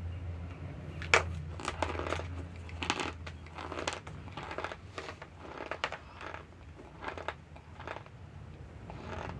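Raw cornstarch being bitten and chewed, a run of crisp crunches about one or two a second, the sharpest about a second in, over a steady low hum.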